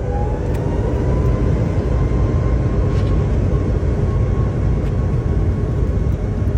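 A motor or engine running steadily with a heavy low rumble; its whine rises in pitch over about the first second, then holds steady.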